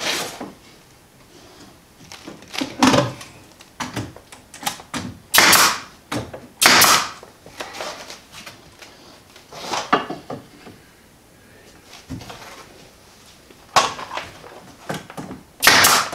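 Wooden boards being handled and fitted into a wooden mantel frame: scattered knocks, clicks and scrapes, with several short noisy bursts about half a second long a few seconds apart.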